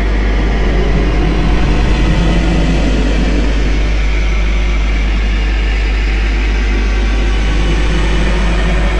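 Background music: a steady, droning track with a heavy, constant low rumble underneath.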